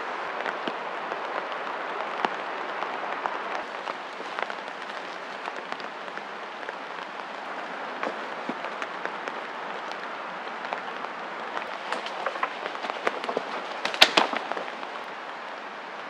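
Branches and twigs being handled and footsteps in dry leaf litter: scattered crackles and snaps, with a louder burst of cracking near the end, over a steady hiss.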